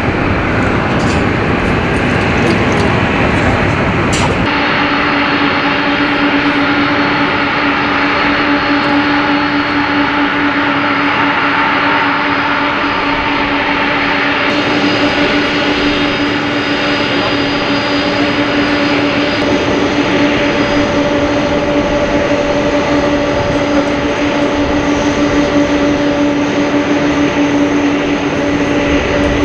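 Boeing 747 jet engines. For the first four seconds or so comes the broad, even roar of a 747 climbing out after takeoff. Then, after an abrupt change, a 747 freighter's engines run at taxi power, a steady hum with a faint high whine over a lighter roar.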